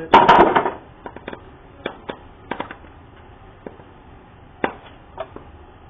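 Plastic parts of a Bissell PowerForce Helix upright vacuum being worked loose by hand while the adjuster wheel assembly is removed: a loud clatter lasting about half a second at the start, then scattered light clicks and knocks.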